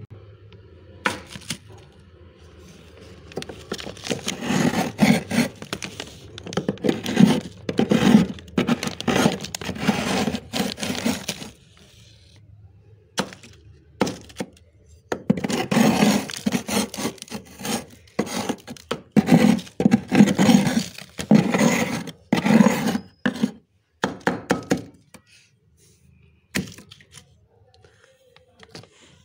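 A metal curry spoon scraping and crunching through thick freezer frost. The crunches come in two long runs of rapid, crisp strokes, with a few single crunches between them and near the end.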